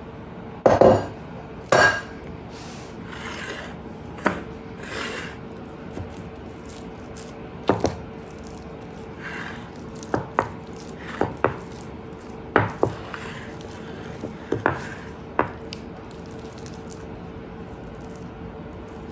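Kitchen utensils and dishes knocking and scraping against a mixing bowl and baking pan: two loud clunks about a second in, then a dozen or so sharp, separate clicks and knocks with soft scraping between.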